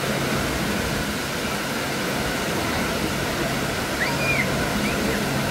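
Steady rush of falling and splashing water, as from a water park's waterfalls, over a steady low hum. A few short high chirps come about four seconds in.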